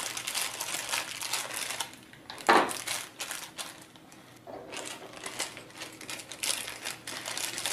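Small clear plastic bag crinkling and rustling as servo motors are pulled out of it, with light clicks of parts handled on the table. One louder rustle comes about two and a half seconds in, and it goes quieter for a couple of seconds before the crinkling picks up again.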